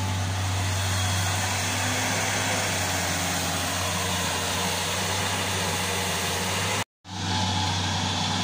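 Diesel engine of a Tata Hitachi crawler excavator running steadily as it digs. The sound drops out completely for a moment about seven seconds in.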